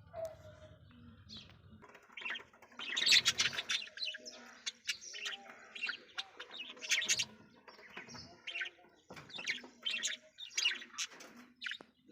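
Parrot chirping in a quick run of short, high calls, loudest about three seconds in.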